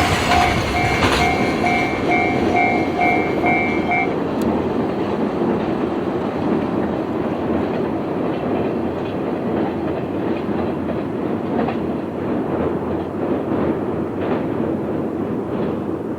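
Freight train wagons rolling over a curved level crossing, with wheel clatter over the rail joints. The crossing's warning bell rings in a quick pulsing beat, about twice a second, and stops about four seconds in. The train's rumble then slowly fades as it moves away.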